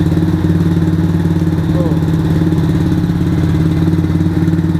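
110 cc ATV's single-cylinder four-stroke engine idling steadily.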